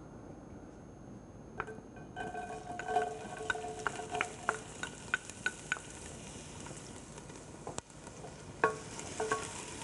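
Chopped onion hitting hot oil in a stainless steel stockpot, starting to sizzle about two seconds in. A wooden spoon knocks against the pot and bowl while pushing the onion in and stirring, each knock ringing briefly, with a louder knock near the end.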